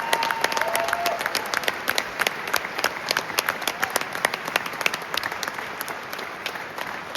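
Concert audience applauding at the end of a song, dense clapping that slowly fades.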